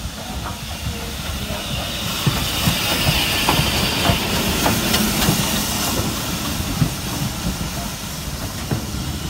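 Steam locomotive hissing steam, the hiss swelling about two seconds in and easing after about six seconds, over a run of low knocks and clanks from the engine and train.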